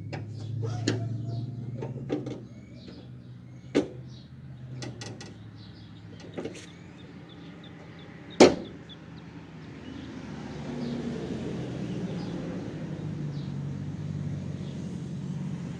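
Sharp knocks and clicks from hands working on a car's steel fender, five or six in all, the loudest about eight and a half seconds in. They sit over a steady low hum, with birds chirping during the first half. From about ten seconds a steady rushing noise rises.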